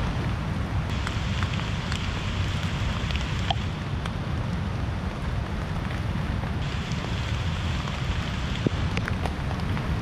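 Steady rain in woodland, with scattered drops ticking sharply on nearby surfaces over a low, even rushing rumble.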